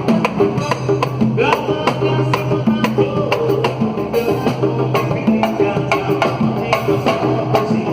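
Samba band playing: a fast, steady rhythm of sharp percussion strikes over a repeating bass line.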